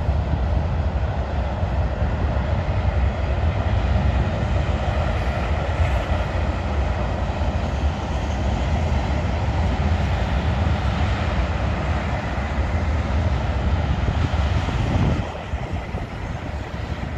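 Union Pacific freight train passing: the steady rumble and rail noise of freight cars rolling by, tank cars among them. The deep low rumble drops away about fifteen seconds in, and the sound gets a little quieter.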